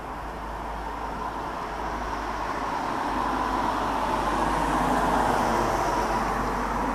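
Boeing 787-8 Dreamliner's Rolls-Royce Trent 1000 jet engines heard from the ground as the airliner passes overhead: a steady rushing roar that swells to a peak about five seconds in and then begins to fade.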